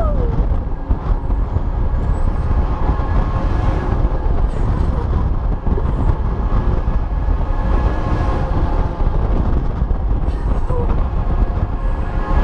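Steady loud rumble and rushing noise on board a swinging Mondlift fairground ride gondola, mostly deep, with faint steady tones above it.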